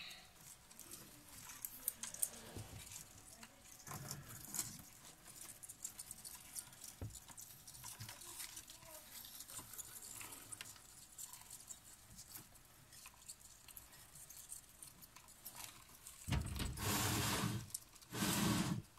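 Faint scattered clicks and light rustling from feeding tweezers and a plastic food cup being handled at a terrarium. Near the end come two louder stretches of rustling noise, the first about a second and a half long and the second shorter.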